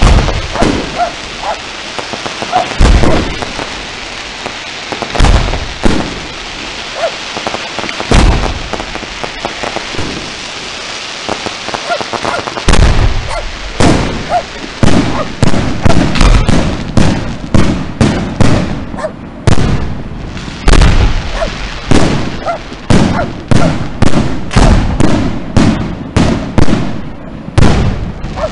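Fireworks going off: a few single loud bangs with crackling between them, then, about halfway through, a rapid run of bangs at roughly two a second.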